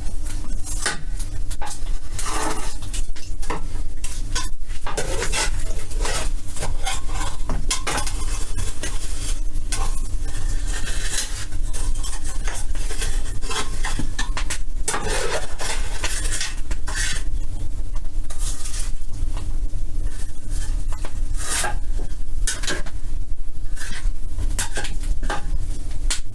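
Irregular metallic clattering, knocking and scraping, the sounds of tending a boiler's firebox while lighting it, over a steady low hum.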